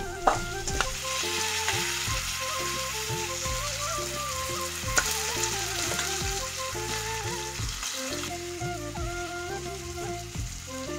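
Raw goat meat hitting hot oil in a steel kadai and sizzling as it fries, with a few sharp clanks of a steel ladle against the pan and the scrape of stirring.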